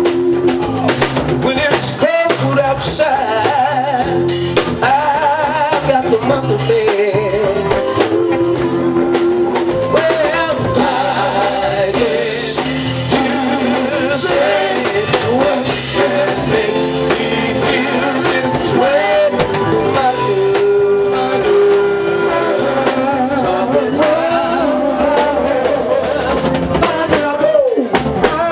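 R&B band playing live: a male lead vocal with vibrato over a drum kit and bass, continuous throughout.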